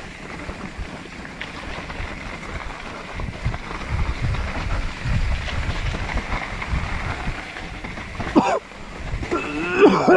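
Wind buffeting the microphone and the rumble of a mountain bike rolling down a dirt trail. Near the end a person's voice cries out briefly, twice.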